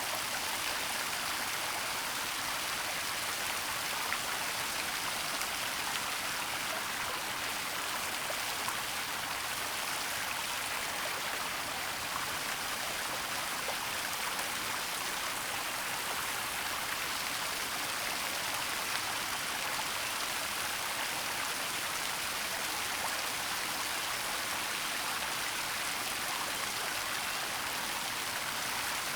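Waterfall and flowing stream water making a steady, even rushing noise, with faint scattered drips and splashes.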